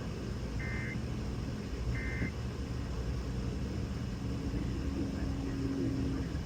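Two short EAS data bursts, each a warbling two-tone chirp about a third of a second long, about a second and a half apart. They are Specific Area Message Encoding tones, and their shortness fits the end-of-message code that closes an alert. Steady radio hiss and a low hum run underneath.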